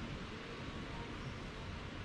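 Steady low background hiss with no distinct sound events.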